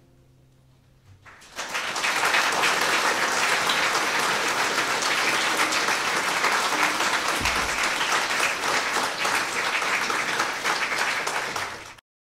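Audience applauding, starting after a brief hush about a second and a half in, then holding steady until it cuts off abruptly near the end.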